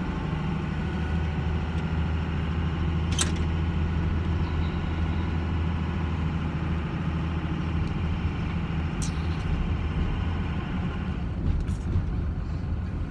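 Pickup truck driving, heard from inside the cab: a steady low engine hum under road and tyre noise, with two brief clicks about 3 and 9 seconds in.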